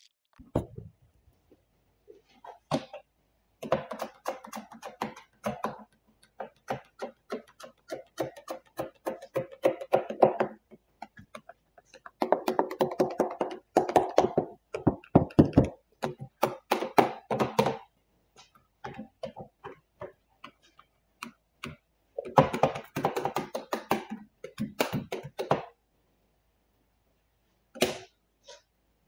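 A hand spray bottle and squeegee working wet paint protection film on a wooden bench top: quick runs of short squirts and squeaky strokes in three bursts of a few seconds each, with pauses between them.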